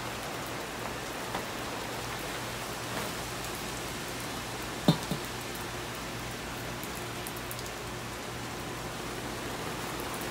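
Steady rain falling, an even hiss, with one sharp knock about halfway through.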